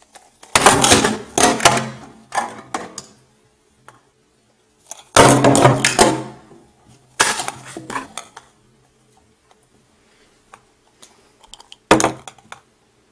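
Hard objects clattering and clicking in four short bursts, the loudest about five seconds in, with quiet gaps between.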